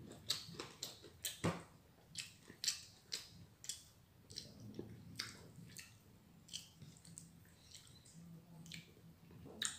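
A person chewing and smacking with their mouth while eating, with irregular short clicks several times a second.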